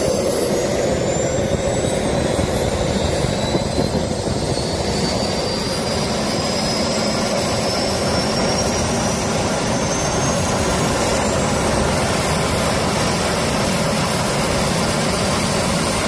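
Small jet turbine engine running at full noise, a loud rushing roar with a high whine. The whine climbs in pitch over the first several seconds as the engine spools up, then holds steady.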